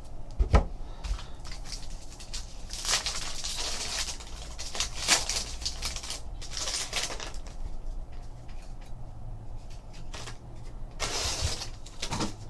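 Trading-card packs being torn open and cards handled: rustling wrapper bursts and small clicks and slides of cardboard, with a thump about half a second in, over a steady low hum.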